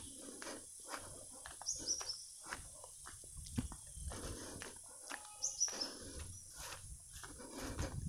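Footsteps on a dirt path, a soft knock about every half second. A bird gives short high falling chirps, in groups of two or three, about two seconds in and again about five and a half seconds in.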